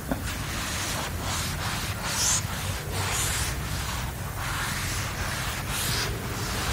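Chalk scratching on a blackboard as figures are written: a series of short, scratchy strokes with brief pauses between them, over a steady low room hum.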